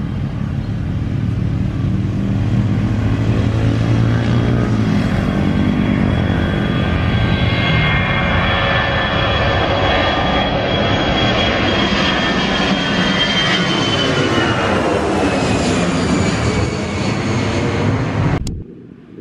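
Twin-engine jet airliner taking off: steady loud engine noise as it rolls and climbs out, then passes overhead, its high whine falling in pitch as it goes by. The sound cuts off suddenly near the end.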